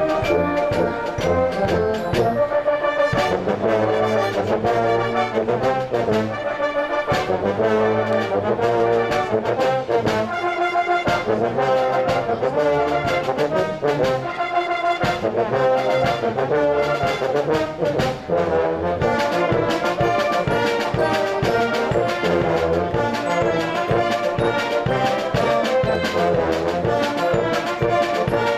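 Brass band playing a march: massed brass holding pitched notes and chords over a steady, even beat.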